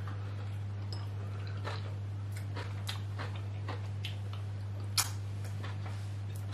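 Soft, scattered clicks and smacks of people eating with their hands and chewing, over a steady low hum; one sharper click about five seconds in.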